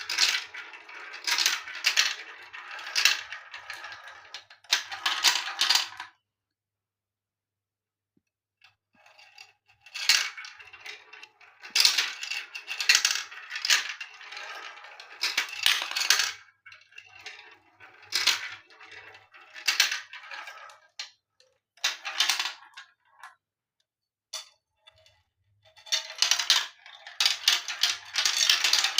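Marbles rolling and clattering down a marble run, in bursts of rapid clicks and rattles with short silences between the bursts.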